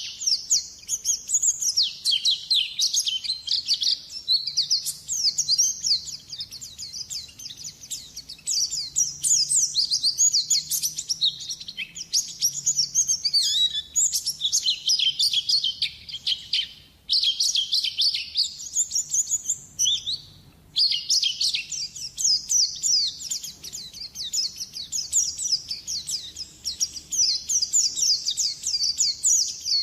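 White-eye (pleci) singing a long, fast twittering song of rapid high chirps and short falling notes, broken only by brief pauses about halfway through.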